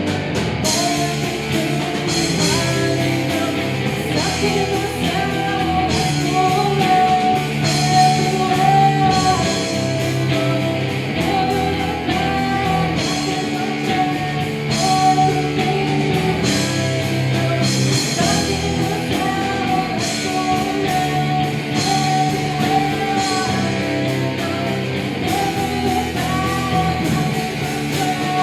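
Rock band playing a song: electric guitars over drums, with cymbal hits recurring steadily and a sustained melody line.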